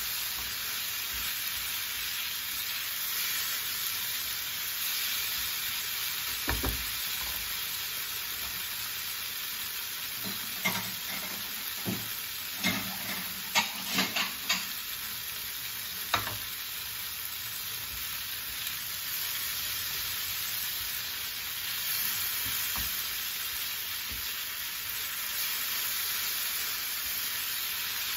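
Strips of hard tofu sizzling as they fry in a little oil in a nonstick frying pan, with a steady hiss. A spatula knocks and scrapes against the pan about eight times in the middle of the stretch.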